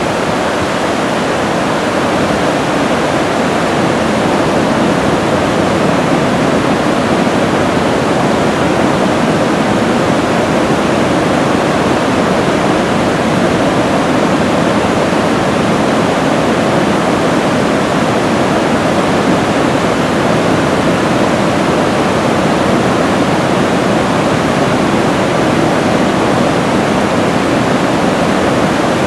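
Whitewater rapid at release flow: a loud, steady rush of water pouring over a rock ledge.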